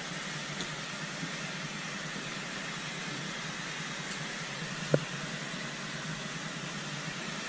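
Steady machinery hum and hiss inside a boat's cabin, with a single sharp tap about five seconds in.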